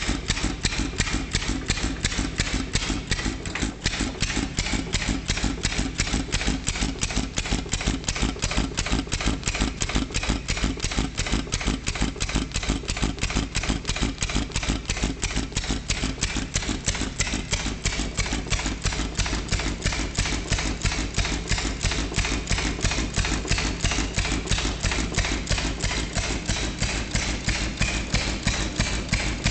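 International Harvester Model M 1½ hp hit-and-miss stationary engine running, a fast, even clatter of clicks and knocks with every turn of its flywheels.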